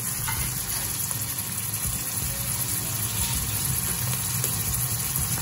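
Tuna and diced onion sizzling steadily in hot oil in a stainless steel frying pan, with a steady low hum underneath.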